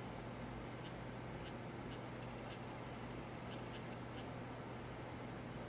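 Quiet room tone: a steady low hum and a thin high-pitched whine, with about ten faint, soft ticks scattered unevenly through it.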